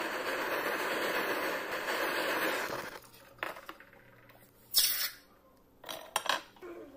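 Torch flame blowing steadily while annealing a silver ring blank to red heat, cut off abruptly about three seconds in. A few sharp metallic clinks follow as tweezers pick up the hot silver.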